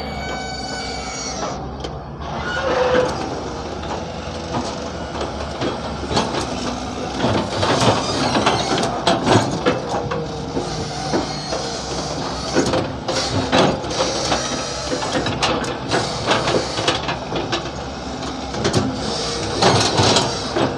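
Hyundai 170 excavator's diesel engine running steadily. From about six seconds in it is joined by many repeated knocks and rattles of the machine at work.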